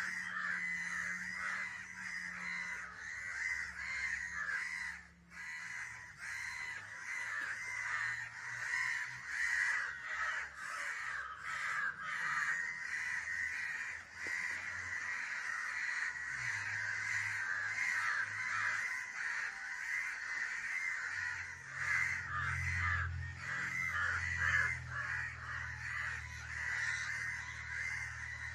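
Several crows cawing without pause, their harsh calls overlapping into a dense racket: the alarm cawing crows raise when one of them is caught, here by a kitten.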